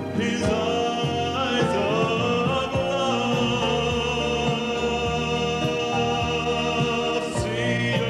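Music: a singing voice in a trained, operatic style over orchestral accompaniment, holding one long note through the middle.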